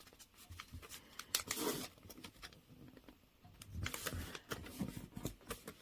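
A sheet of origami paper being folded and creased by hand: rustling and crinkling with small taps and scrapes, loudest about one and a half seconds in and again about four seconds in.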